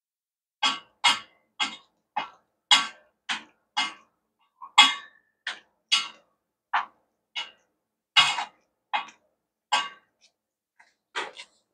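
Close-miked chewing of a mouthful of pineapple fried rice: short, sharp mouth sounds about twice a second, with a few brief pauses.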